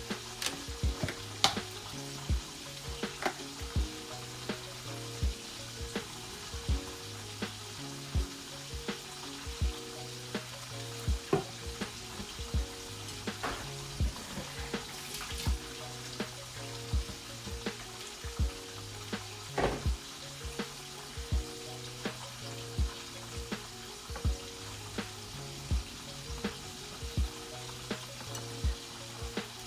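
Chicken frying in hot oil, giving a steady sizzle, with quiet background music that has a steady low beat.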